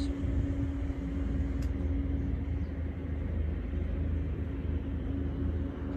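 Steady low background rumble with a constant low hum running through it.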